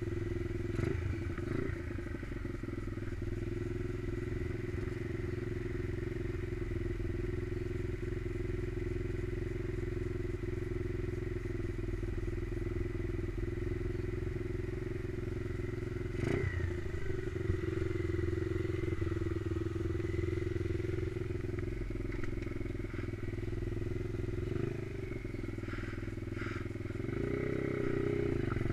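Stomp pit bike's new 125cc Lifan single-cylinder four-stroke engine, still being run in, running steadily at low revs, then revving up near the end. A brief knock about halfway through.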